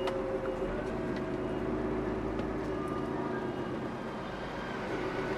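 HGV lorry engine running at low speed, heard from inside the cab as the truck crawls along: a steady, even hum.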